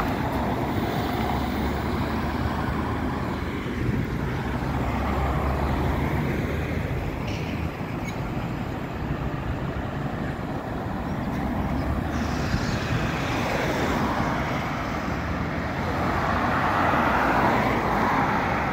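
Road traffic passing at a junction: engines and tyres of cars, vans and trucks. Near the end a heavy tractor unit pulling a low-loader comes closer and its engine grows louder.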